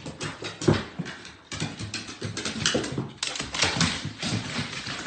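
A dog's paws and claws knocking and tapping on wooden stairs as it goes down them: a quick, uneven run of knocks.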